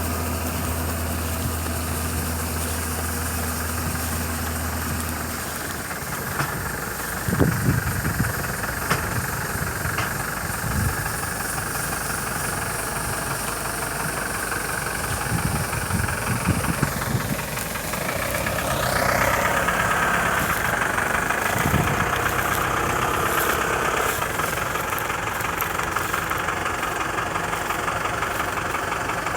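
John Deere 955 combine harvester running, its engine and machinery giving a steady drone. Several low thumps come through, and about two-thirds of the way in the tone shifts with a brief rise in pitch.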